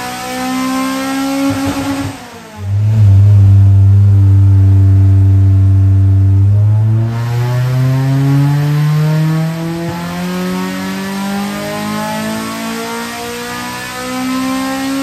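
Honda Prelude's 2.3 L F20B-based stroker four-cylinder with a ported H22 head, heard from inside the cabin, pulling hard under load with its pitch climbing. About two seconds in the revs drop sharply with a brief dip in sound, as on an upshift, then the engine climbs steadily again in the next gear.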